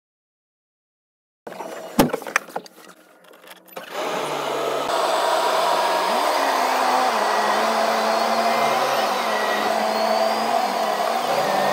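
Silent at first, then a sharp knock and a few clicks about two seconds in. From about four seconds, the Deutz-Fahr tractor's diesel engine runs steadily as the tractor drives off, its pitch drifting up and down, heard from inside the cab.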